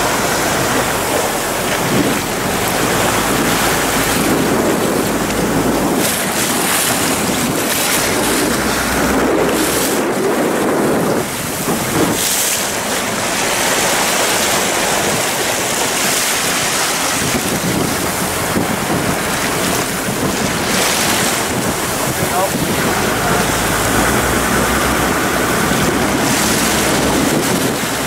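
Wind buffeting the microphone and water rushing and splashing past the hull of a boat under way at speed over choppy open sea, a steady loud rush that swells and dips in gusts.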